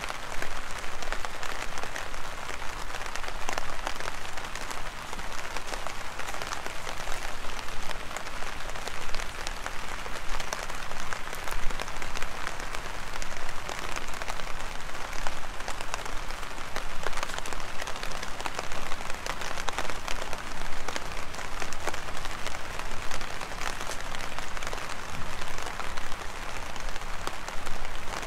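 Heavy rain falling steadily: a dense, even patter of many separate drop hits.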